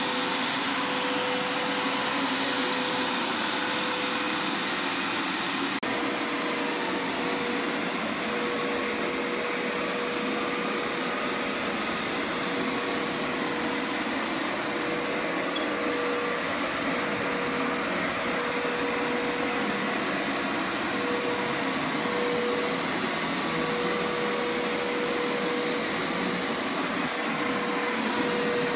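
Hoover Power Scrub Deluxe carpet washer (FH50150NC) running steadily as it cleans carpet: an even motor and suction noise with a steady whine.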